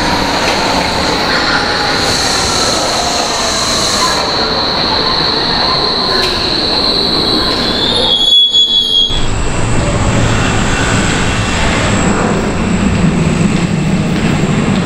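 Electric metro train running along a platform, its wheels giving a steady high squeal under a whine that falls in pitch. About halfway through the sound breaks off briefly and is followed by the lower rumble and hum of another electric train approaching.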